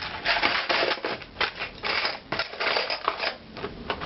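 Hands rummaging through a container of small items, an irregular run of clattering and clicking as things are shifted and pushed around.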